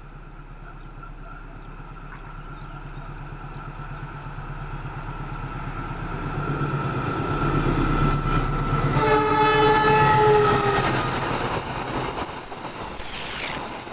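CC 206 diesel-electric locomotive approaching, its engine growing louder, sounding a multi-tone horn blast about two seconds long around nine seconds in, then passing with rumbling wheels.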